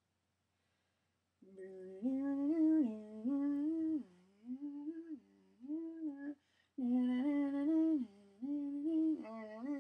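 A person humming a tune in a small room, stepping between a few held notes in short repeating phrases, starting about a second and a half in.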